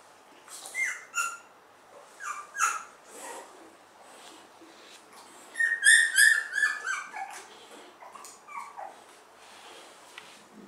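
Two-week-old chow chow puppies squealing and whimpering: a few short, high, falling cries in the first seconds, a quick loud run of squeals about halfway through, then softer whines.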